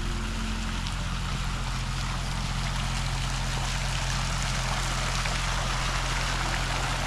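Steady rushing noise with a low hum underneath.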